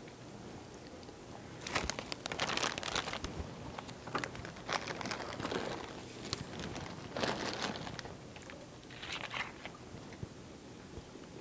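Loud crunching of Takis rolled tortilla chips being bitten and chewed, with the snack bag crinkling, in several bursts.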